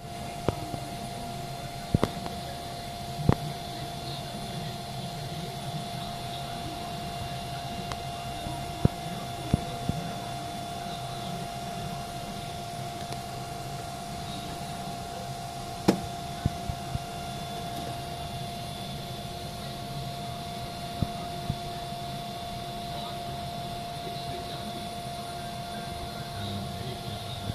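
Steady rushing noise of heavy rain heard from indoors behind window glass, with a constant steady hum under it and scattered sharp ticks now and then.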